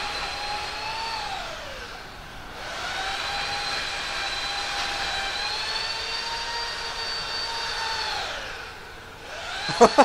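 A tree-trimming power tool whining at high speed in runs of several seconds, its pitch falling away each time the trigger is let go, then starting up again. A few sharp clicks come near the end.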